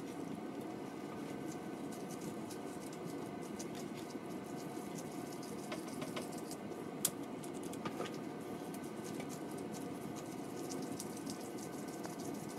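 Soft squishing and rustling of latex-gloved hands rolling raw ground-meat meatballs, with a few faint light ticks, over a steady background hiss.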